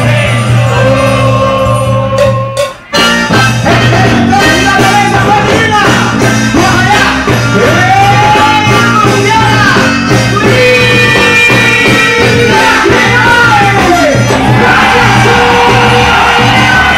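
Loud live band music with a steady pulsing beat and a melody line, cutting out briefly about three seconds in.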